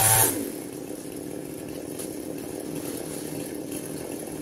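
Chainsaw that drops from a loud run to a steady idle just after the start.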